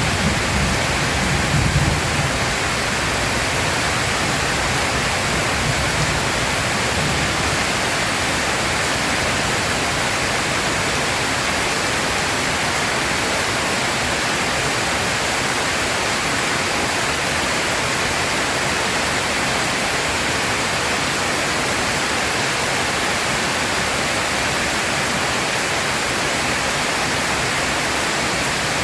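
Heavy rain pouring down as a steady, even hiss. A low rumble of thunder dies away in the first couple of seconds.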